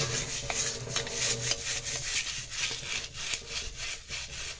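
Scrubber rubbed hard over stainless steel in quick back-and-forth strokes, about three a second, scouring hard-water stains off with a cleaning paste.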